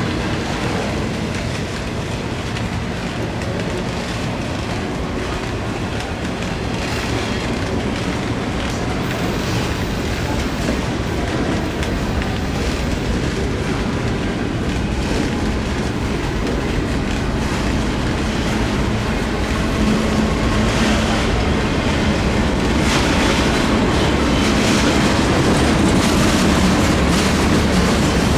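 Freight train cars rolling past close by, a steady rumble with the clickety-clack of wheels over rail joints, growing a little louder in the second half.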